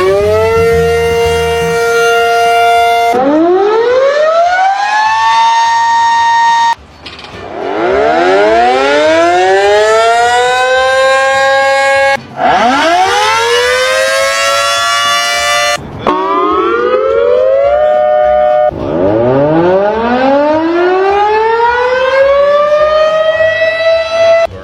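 Air-raid-style siren wail, a Siren Head sound effect: its pitch rises from low and levels off into a steady howl, then cuts off suddenly and starts rising again, about six times in a row.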